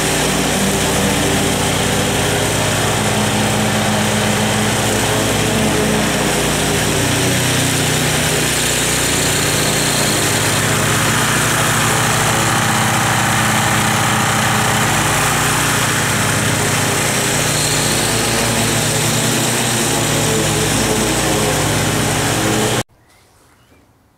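Wolf-Garten riding mower's engine running steadily while it mows grass, loud throughout; the sound cuts off abruptly near the end.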